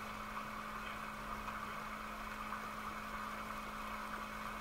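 A steady low hum with a constant even hiss and no distinct events.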